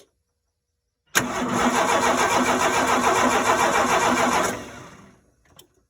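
Ford 300 (4.9 L) inline-six cranking on its starter for about three and a half seconds without firing, a no-start. The cranking cuts in suddenly about a second in and winds down near the end.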